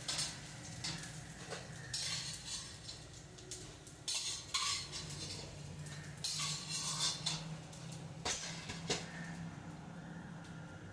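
A metal spoon scraping and clinking against a pan, lifting fried gond out of the hot ghee onto a plate, in about five separate strokes, over a low steady hum.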